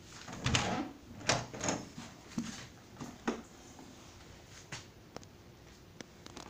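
A run of knocks and clatters from a wooden door being bumped and moved, thickest in the first two seconds, a sharp knock a little past three seconds in, then a few fainter clicks.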